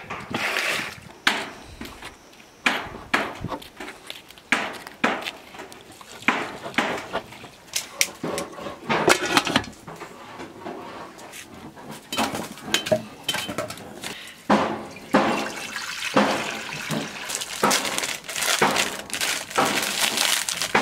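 Water splashing and being poured in irregular bursts, with short splashes coming and going throughout.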